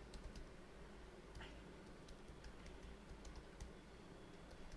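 Faint computer keyboard typing: scattered, irregular keystroke clicks.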